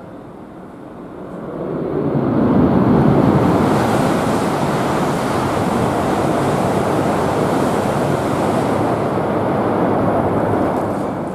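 Tohoku Shinkansen train passing through the station at speed: a rushing roar of air and wheels that builds quickly about two seconds in, holds steady for several seconds, then begins to fade near the end.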